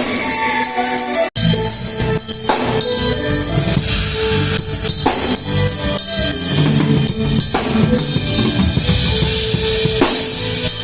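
Music led by a drum kit, with kick drum, snare and rimshots over bass and sustained instruments. It breaks off for an instant about a second in, then carries on.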